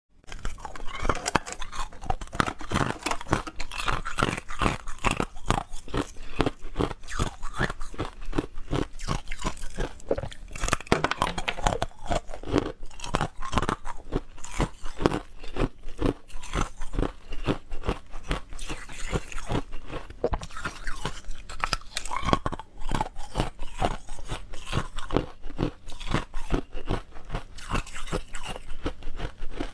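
Hard-frozen ice being bitten and chewed close to a clip-on microphone: many sharp crunches and cracks in quick succession as the ice breaks between the teeth.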